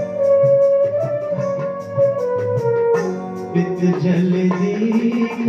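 Instrumental interlude of a Hindi film song played live: a flute-like melody on keyboard, long held notes stepping between pitches, over a steady tabla rhythm.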